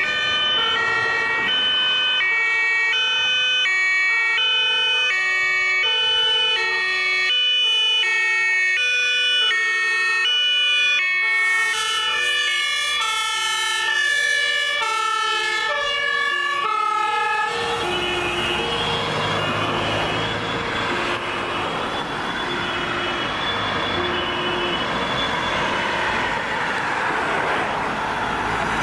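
Several German two-tone emergency sirens from a convoy of rescue vehicles, overlapping and out of step with one another, each alternating between two pitches. About two-thirds of the way in the loud sirens give way to the engine and tyre noise of vehicles passing close by, with a siren still sounding fainter behind it.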